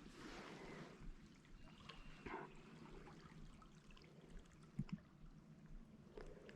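Faint running river water, with a few soft knocks.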